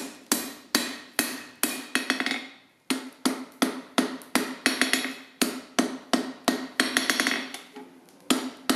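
Hammer blows on a round punch driven through a hole in red-hot 20 mm square steel bar on an anvil, rounding the hole back up. About two to three blows a second, each with a metallic ring, with a brief pause a little under three seconds in.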